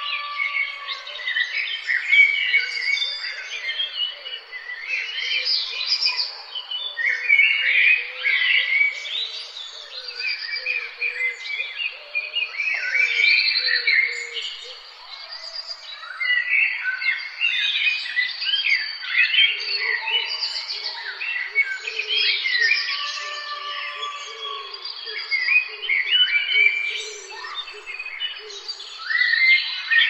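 Spring morning birdsong: many songbirds singing and chirping at once, their calls overlapping, with a lower rapid chattering call joining in for long stretches.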